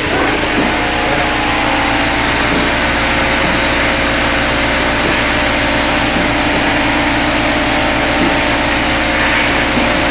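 An e-liquid filling line running: a loud, steady machine hum and buzz with a fast even pulsing underneath. The vibratory bowl feeder is shaking its load of plastic caps round the bowl.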